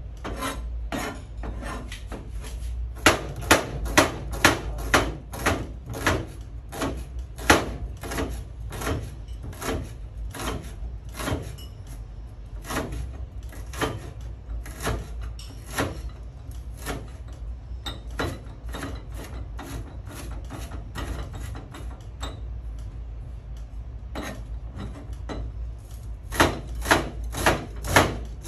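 Kitchen knife chopping shallots on a plastic cutting board: a steady run of blade knocks on the board, about two a second, loudest about three seconds in and again near the end.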